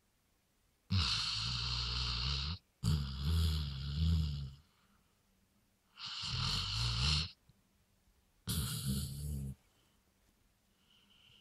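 A Weimaraner snoring loudly in its sleep: four snores, each one to two seconds long, the first two close together.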